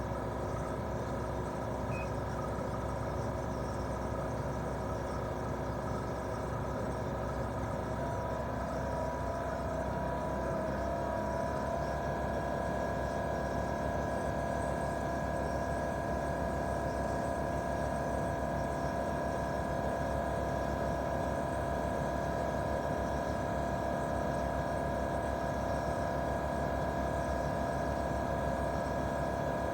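Daikin R28RMV mini-split outdoor unit running in heating mode: its inverter-driven twin-cylinder swing compressor hums steadily with several steady tones. About eight seconds in, the tones rise slightly over a few seconds as the compressor speeds up, then hold steady at the higher pitch.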